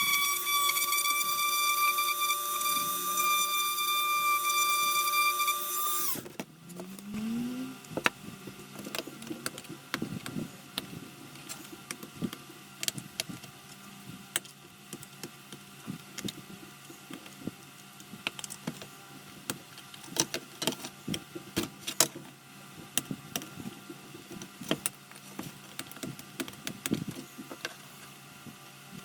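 Small high-speed electric rotary tool drilling a hole in a plastic model body, a steady high-pitched whine that stops abruptly about six seconds in. After it, scattered light clicks and taps of handling the small parts.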